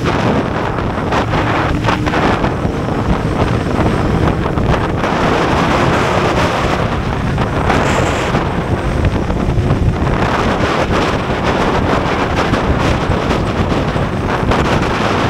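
Loud, steady wind rush on an action camera's microphone on a moving Honda CBR600F motorcycle, covering the engine note.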